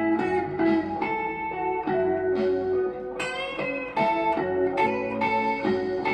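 Instrumental outro of a rock/pop song: a guitar picks a melody of ringing single notes, a few to the second, over a bass line.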